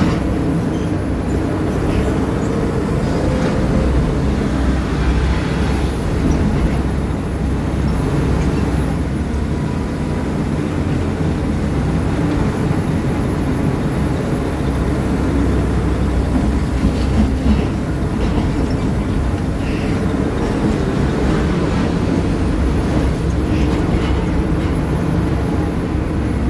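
Hydraulic excavator's diesel engine working under load, a steady low drone that swells and eases as the machine digs and swings, heard from the operator's cab. A few brief knocks come through now and then.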